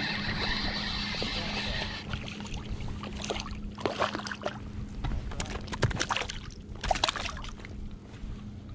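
Water splashing and sloshing close to the microphone as a hooked fish thrashes at the surface on the line, with sharp splashes between about three and seven seconds in. A steady rushing noise fills the first two seconds.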